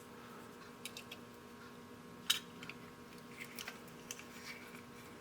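Light clicks and taps of small drill bits being handled and set into a drill index case, scattered irregularly with a sharper click about two seconds in, over a faint steady hum.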